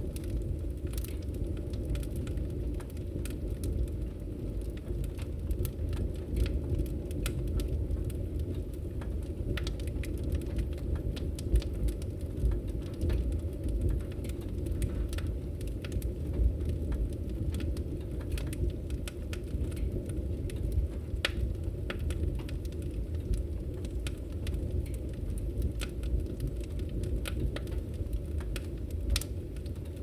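Fire crackling: a steady low rumble of burning with irregular sharp crackles and pops throughout, a few of them louder than the rest.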